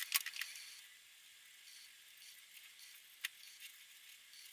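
Felt-tip marker scratching and tapping on paper: a faint hiss, a quick cluster of clicks at the start and one sharp click a little past three seconds.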